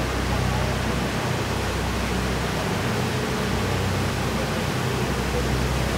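Large fountain's water jets rushing and splashing as a steady, even wash of falling water.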